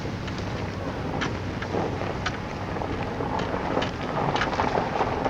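Wind on a camcorder microphone: a steady rumbling noise, broken by many short crackles.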